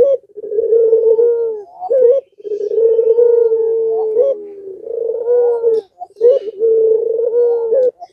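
Puter pelung, a Barbary dove, cooing in long drawn-out low calls. There are about four in a row, each a second or two long with short breaks between them.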